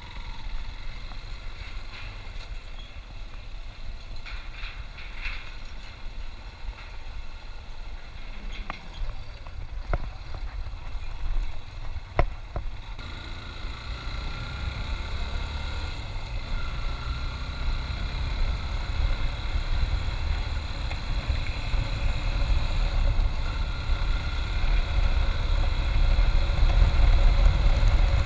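Motorcycle riding: the engine running under a low rumble of wind on the microphone, getting louder as speed builds in the second half. A few sharp knocks come about ten to twelve seconds in.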